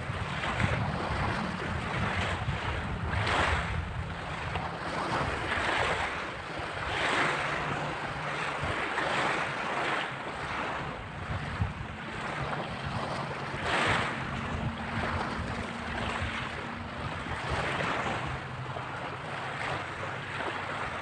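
Small waves washing onto a pebble beach, swelling and falling back every few seconds, with wind buffeting the microphone.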